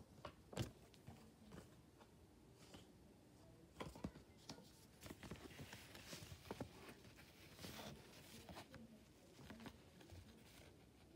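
Faint handling noise from a hand holding up a lined paper note card: scattered soft clicks and taps, with a light rustle in the middle.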